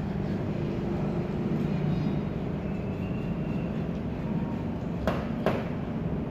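Steady low rumble of background noise, with two short sharp clicks about five seconds in.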